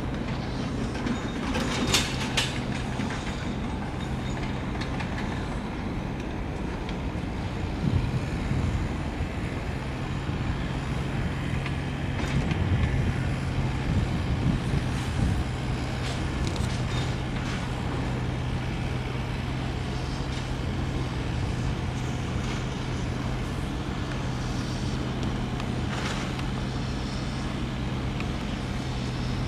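Steady low hum and rumble of a large container ship, the 333 m YM Upsurgence, passing close by under way, with a couple of brief clicks, one about two seconds in and one near the end.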